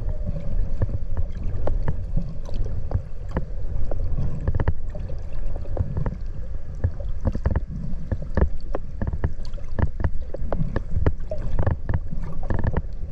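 Underwater noise picked up by a camera submerged in the sea: a steady low rumble of moving water with many sharp clicks and crackles scattered throughout.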